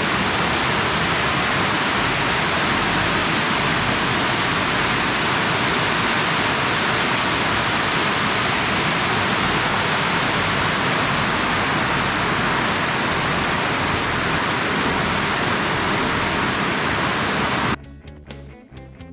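Zillie Falls waterfall: a steady rush of falling water. About a second before the end it cuts off suddenly and guitar music begins.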